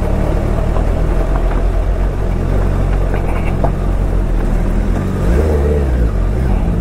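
Suzuki Hayabusa's inline-four engine running at low revs, with a brief rise and fall in revs about five seconds in.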